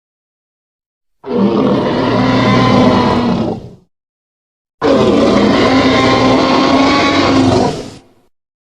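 Two Tyrannosaurus rex roar sound effects, each lasting about three seconds with a deep rumble under a harsh pitched growl, separated by a second of dead silence.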